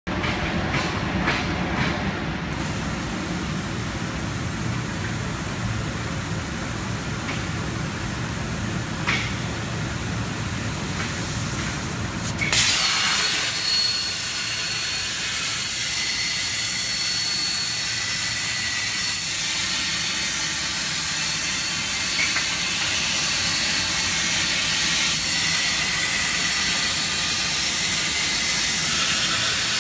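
A low rumble gives way, about twelve seconds in, to a sudden start of a CNC plasma torch's arc. It then cuts steel with a steady loud hiss and a thin high whine.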